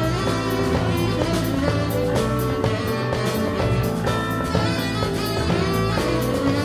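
Live jazz band playing, with electric guitar, bass guitar and drum kit keeping a steady beat.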